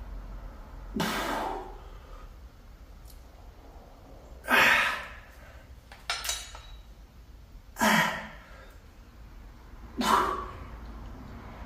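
A man's forceful breaths out during dumbbell lateral raises, one with each hard rep. There are four, about every three seconds, each a short noisy exhale that falls away in pitch.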